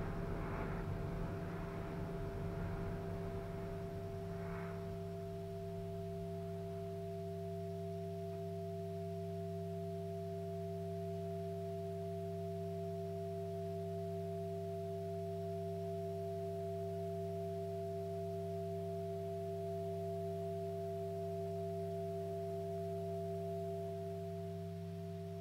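Live experimental electronic music: a sustained drone of several steady, unchanging tones, looped, with a noisy texture on top that fades away in the first few seconds.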